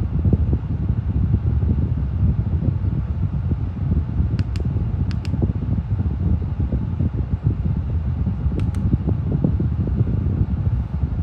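LEVOIT tower fan running, a steady rush of air with gusty low rumble of its airflow buffeting the microphone. A few faint light ticks in the middle and near the end.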